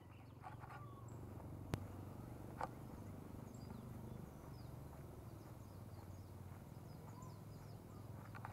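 Faint outdoor ambience: a steady low rumble with scattered short bird chirps. A single sharp click stands out less than two seconds in, followed by a brief mid-pitched sound about a second later.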